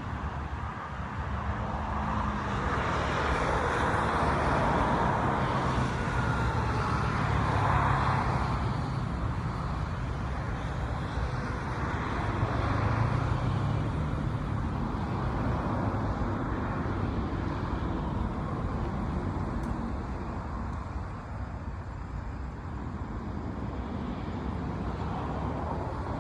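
Road traffic noise: a steady wash of passing vehicles with engine hum, swelling louder twice as vehicles go by.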